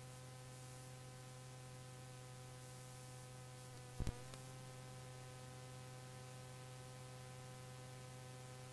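Faint steady electrical hum from the sound system, with several steady tones above it, and a single sharp click about four seconds in.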